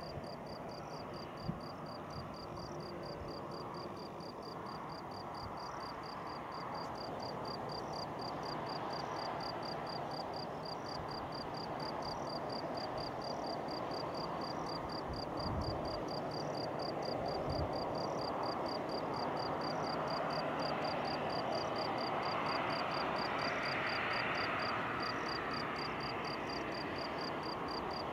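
Distant jet engine noise from a Boeing 737-300's CFM56 turbofans at taxi power, a steady rush that slowly grows louder as the airliner turns on the runway. High insect chirping, crickets, pulses evenly a few times a second throughout.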